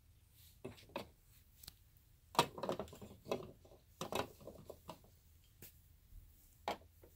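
Hard plastic dollhouse furniture clicking and clattering against the plastic floors and walls of a Fisher-Price dollhouse as pieces are handled and set in place. The light knocks come irregularly, with two busier bursts of rattling about two and a half and four seconds in.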